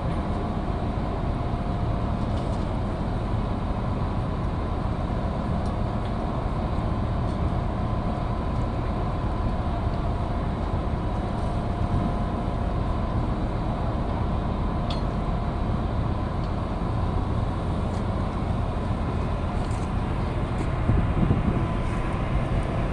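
Steady machinery drone: a constant low rumble with a couple of faint held tones over it and a few small ticks.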